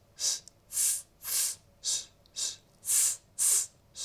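A person hissing a run of short, sharp 'S' sounds, about two a second, as an exercise in softening an overly sharp sibilant S.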